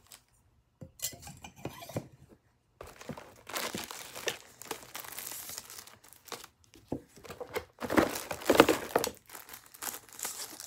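Thin clear plastic sleeves crinkling and tearing as steak knives are pulled out of their wrapping. The rustling comes in irregular bursts with brief pauses and is loudest about three quarters of the way through.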